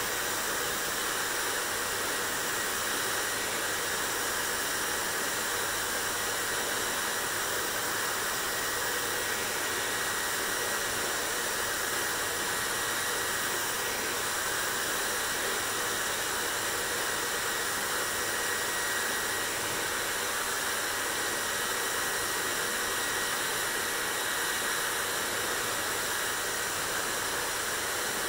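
Hair dryer running steadily, an even blowing hiss that holds at the same level without change.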